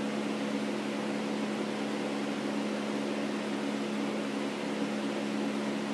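Steady low hum with a constant hiss, unchanging throughout.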